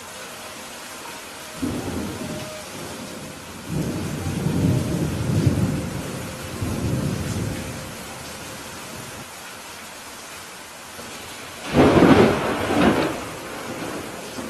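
Steady rain with thunder rolling: a rumble about a second and a half in, a longer one from about four to eight seconds, then the loudest, sharper clap near twelve seconds.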